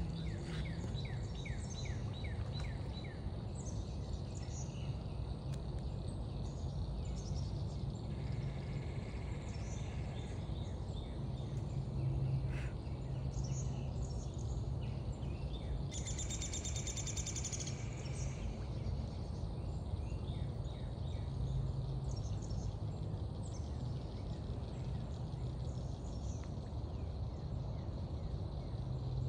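Outdoor swamp ambience: a steady low rumble and hum under scattered bird chirps. There is a quick run of chirps in the first few seconds and one buzzy trill of about two seconds near the middle.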